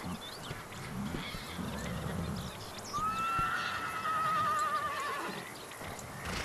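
A horse whinnying once, about three seconds in, a quavering call lasting about two seconds.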